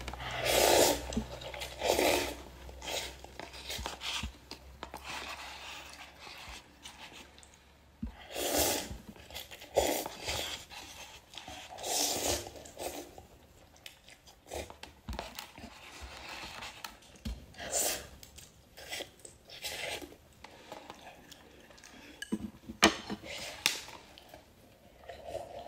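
Chewing and slurping of instant cup noodles eaten with chopsticks, in separate bursts every second or two with short quiet gaps between.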